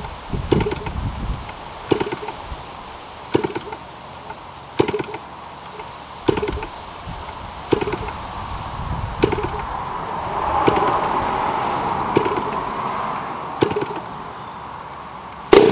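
RCGF 60cc two-stroke gasoline engine being turned over by hand-flipping its propeller with the choke on, drawing fuel through to the carburettor. There is one flip about every second and a half, each a sharp click with a brief low rush, and the engine does not catch. A louder snap comes right at the end.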